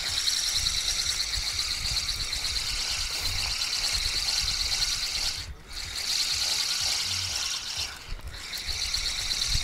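Fishing reel being cranked, a steady fine whir of the retrieve, with a short pause a little past halfway, as a small hooked fish is reeled in.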